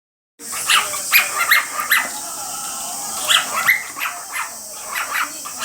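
Male cockatiel giving a quick series of short, sharp chirping calls, each one swooping in pitch, over a steady hiss.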